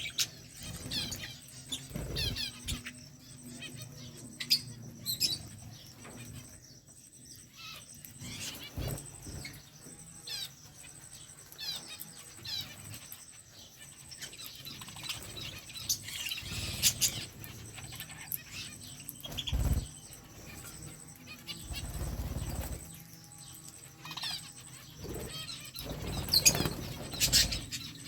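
Budgerigars chirping and chattering to each other in short, scattered high chirps, with a few low thumps and rustles among them.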